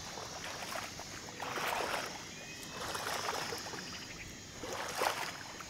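Leaves and branches rustling and swishing as a person pushes on foot through dense wetland shrubs. The sound comes in a few separate bursts, the last and sharpest near the end.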